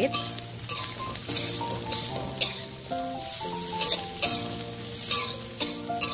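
Metal spatula scraping and tossing greens, egg and chicken in a wok over sizzling oil, with a sharp scrape every half second or so. Soft background music with sustained notes runs underneath.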